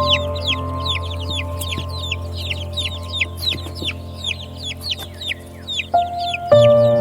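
Baby chicks peeping: a rapid, continuous run of short, high chirps, each falling in pitch, several a second, over soft, sustained music notes that change near the end.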